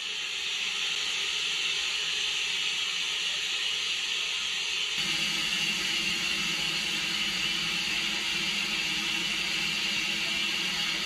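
Saddle-tank steam locomotive standing with steam escaping in a loud, steady hiss. A deeper rushing layer joins about halfway through.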